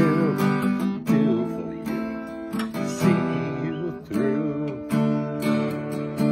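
Acoustic guitar strumming chords, a fresh strum about every second, with the chords ringing on between strokes.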